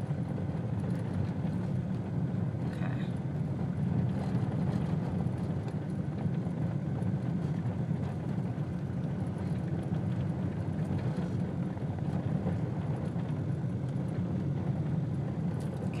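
Steady low rumble of running vehicle engines in a highway construction zone, holding even throughout.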